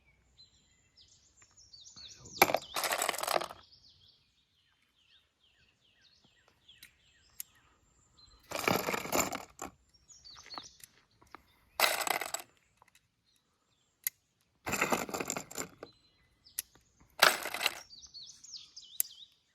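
Loose .223 and 5.56 rifle cartridges clinking together as they are mixed, in about five short jingling bursts. Birds chirp between them.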